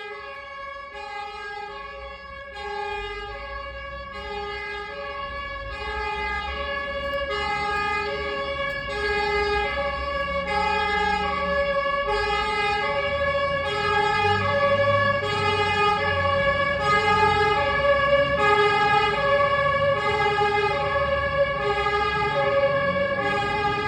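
Two-tone emergency-vehicle siren switching steadily back and forth between two pitches, growing louder throughout, over a low traffic rumble.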